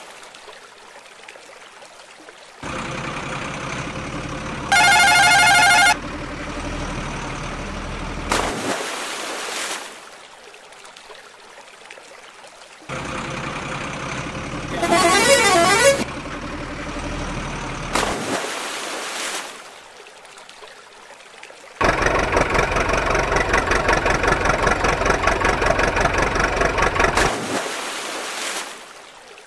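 Truck engine sound effects in three runs, with a horn honk about five seconds in and a warbling horn about fifteen seconds in. The last run is louder and rattles, and each run ends in a short splash as a toy truck drops into the water.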